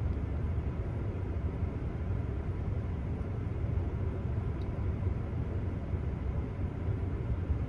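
Steady low rumble inside a car cabin: the car's engine and cabin noise running evenly, with no distinct events.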